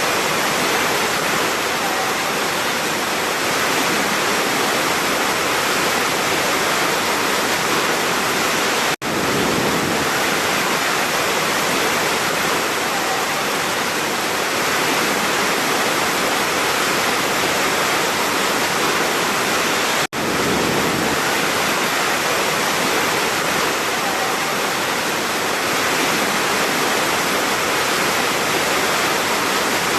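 Large waterfall crashing in a steady, dense rush of falling water. The sound drops out for an instant twice, about nine and twenty seconds in.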